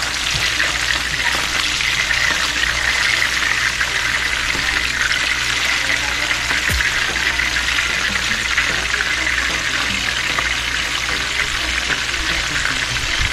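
Seasoned mahi-mahi pieces frying in hot oil, a steady sizzle that keeps an even level throughout.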